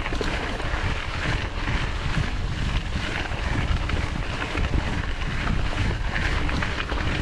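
Wind buffeting the microphone with a steady rumble, over the rattle and crunch of a mountain bike riding a rough trail.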